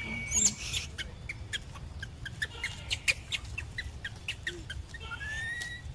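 Young macaque squealing in distress: a loud, high scream in the first second, then a run of short, high squeaks several times a second, and a rising squeal near the end.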